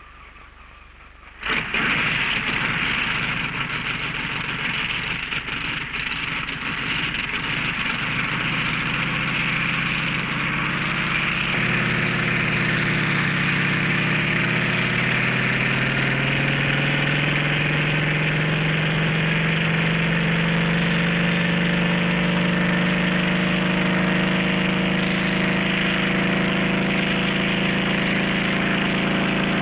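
Helicopter engine and rotor running. A rushing whir comes first, then about a third of the way in an engine note climbs steadily in pitch over several seconds and then holds steady.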